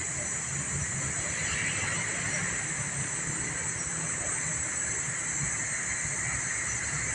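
Steady outdoor background hiss, with a constant high whine-like band and a low, uneven rumble underneath; no distinct event.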